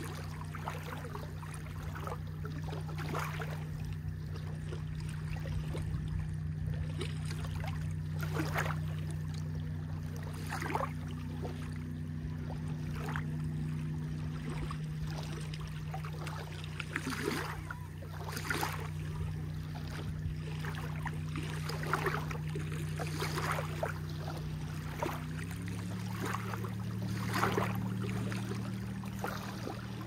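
Small waves lapping and splashing against the shore, over a steady low engine hum that steps up in pitch near the end.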